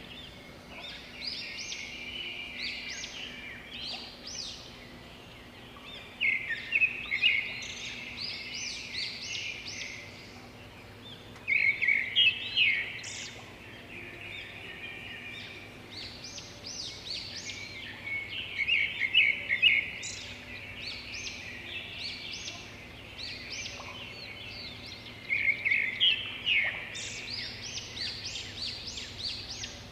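Songbirds chirping and singing in quick, high, repeated phrases, with louder bouts every six or seven seconds over a faint steady hum.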